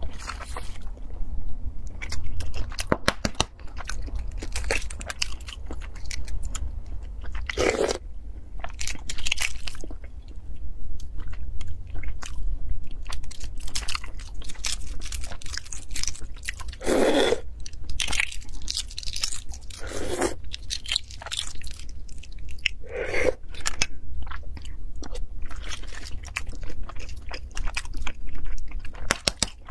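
Eggshells crackling and crunching as boiled eggs are cracked and peeled by hand, close to the microphone, with a few louder knocks now and then.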